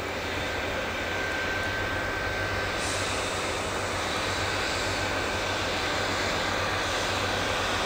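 Diesel train engine running steadily, with a thin high whine over a low hum, slowly growing louder.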